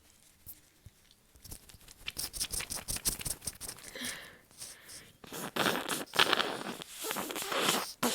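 A paper tissue crinkling and rustling, then a person blowing their nose hard into it in two long blows in the second half.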